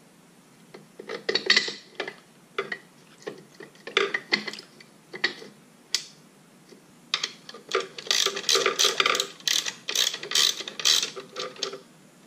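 Hand socket ratchet clicking as a bolt is turned on a jet ski's pump parts. Scattered clicks and knocks of metal parts being handled come first, then a fast run of ratchet clicks in the second half.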